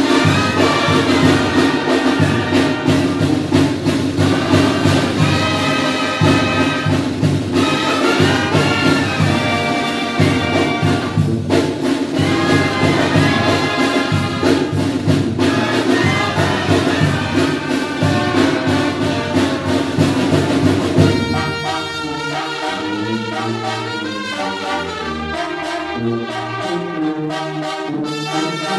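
Mexican banda (brass band with sousaphone) playing a tune over a steady beat. About three-quarters of the way through, the beat drops out and the brass carries on a little more softly in held notes.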